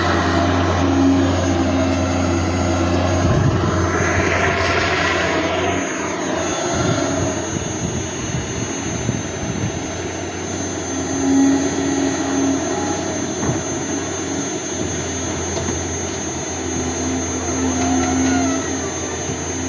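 Excavator's diesel engine running steadily, with a whine that rises and falls about four to five seconds in.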